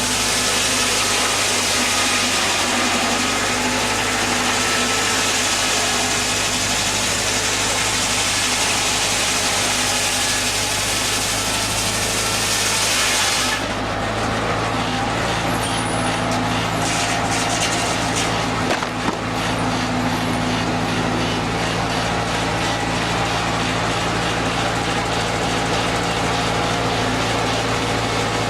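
Engine powering an old sawmill, running steadily with an even hum. A loud rushing, hissing noise over it cuts off abruptly about halfway through, and the engine hum carries on.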